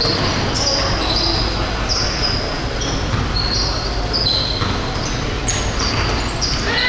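Basketball players' sneakers squeaking on a gym floor: many short, high squeaks, about one or two a second, over a steady din of crowd noise in a large hall.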